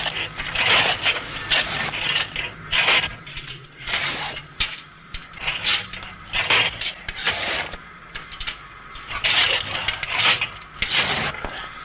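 Steam locomotive fireman shovelling coal: the steel shovel scrapes into the coal in the tender and the coal is thrown into the firebox, in repeated quick, irregular strokes. The fire is being built up for the climb.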